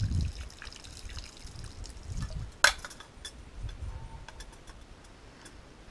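Katadyn hand-pump water filter being pumped, with filtered water trickling and dripping into a cook pot. There are small scattered clicks and one sharp click a little over two and a half seconds in.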